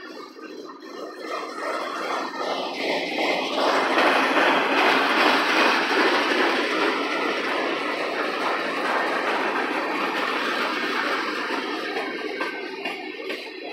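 Cars of a manifest freight train rolling past on the rails: the steady rumble and clatter of steel wheels on track, growing louder over the first few seconds and then holding steady.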